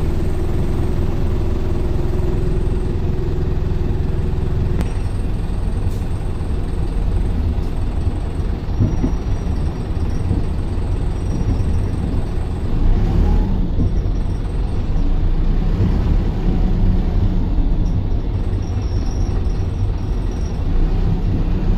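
Single-deck bus engine and road noise heard from inside the passenger saloon while the bus is driving, a steady low rumble. A steady hum in the mix dies away about five seconds in.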